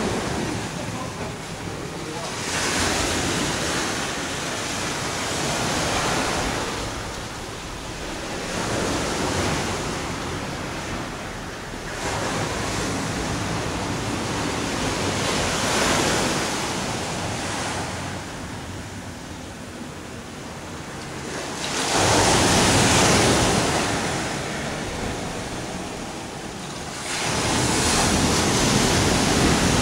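Ocean surf washing onto a beach, a steady rush of noise that swells and fades every few seconds, loudest near the end.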